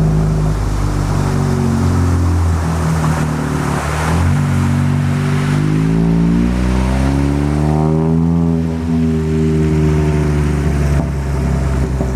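Chevy Cruze engine running under load: its note rises steadily in pitch from about four seconds in to about eight seconds, then falls back as the revs drop.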